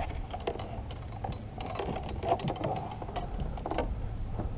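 Scattered light clicks and taps, irregular and several a second, over a low steady rumble.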